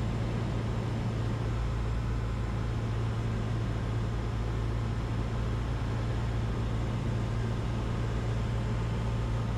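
Cessna 150's four-cylinder Continental O-200 engine and propeller droning steadily in the cabin, throttled back to about 1,700 rpm for the descent in the landing pattern.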